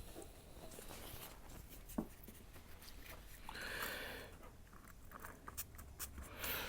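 Quiet handling sounds of small hand tools and wire: scattered light clicks, one sharper click about two seconds in, and a brief soft rustle near four seconds.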